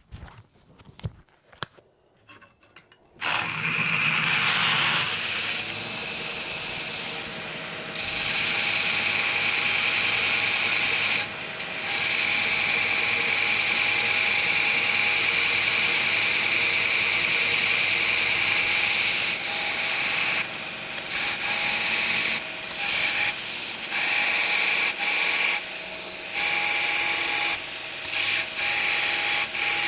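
Belt grinder starting about three seconds in and running with a steady whine while a worn belt grinds forge scale off the edges of a forged steel billet. The grinding noise dips and comes back several times in the second half as the steel is lifted off and pressed back onto the belt.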